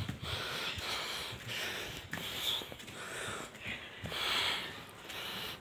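A person breathing hard while climbing stairs, a series of short, hissing breaths about once a second, out of breath from the climb.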